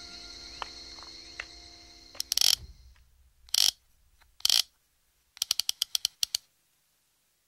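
Soft background music fades out. Three short, loud noisy bursts follow, about a second apart, then a quick run of about ten sharp clicks lasting a second, like a ratchet.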